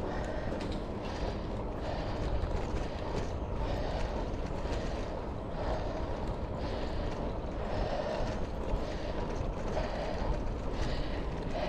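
Wind rushing over a handlebar-mounted GoPro's microphone, mixed with the rumble of road bike tyres rolling on a rough tarmac lane; steady, with small gusts.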